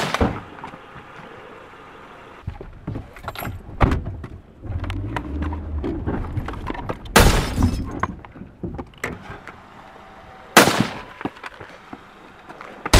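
Three loud, sharp bangs a few seconds apart, each with a short ringing tail, and a low rumble between them.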